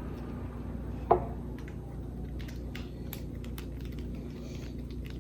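Small metal tool and reel parts handled on a work surface: one sharp clink with a short ring about a second in, then a scatter of faint light ticks and clicks.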